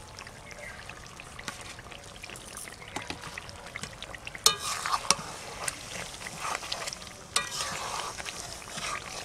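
Metal spatula stirring mango pickle in mustard oil in a metal kadai, scraping and clinking against the pan in a run of strokes from about halfway in, over a low sizzle of the hot oil.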